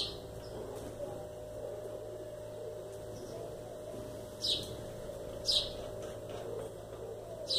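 Short, high calls of a sabiá (thrush), each a quick downward sweep. There are two about a second apart a little past the middle, and others at the very start and end, over a steady low hum.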